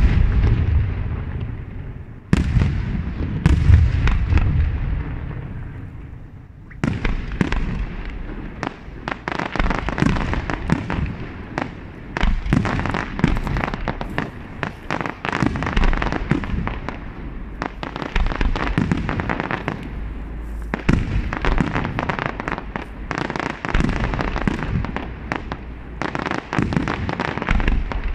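Aerial fireworks display with shells bursting. There are a few heavy booms in the first few seconds, then from about seven seconds in a dense, continuous barrage of rapid bangs and crackle.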